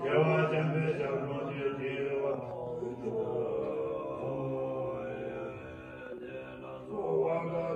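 Tibetan Buddhist monks chanting a puja liturgy in low, sustained voices. The chant quietens through the middle and swells again near the end.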